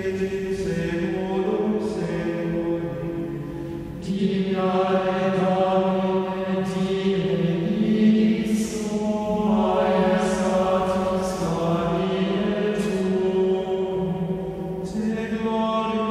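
Voices singing a slow choral chant, holding long notes that change every few seconds; the singing grows louder about four seconds in.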